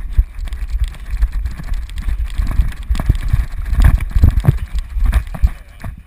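Wind buffeting a head-mounted GoPro in its waterproof housing as the wearer runs, a heavy rumble broken by the jolts of his footfalls on grass. The thuds are loudest about four seconds in and die away just before the end.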